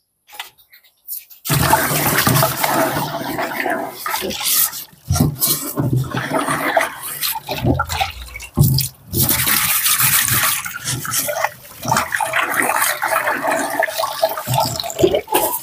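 Tap water running and splashing into a stainless-steel sink as a metal cooking pot is rinsed and emptied, with irregular knocks of the pot against the sink. It starts about a second and a half in.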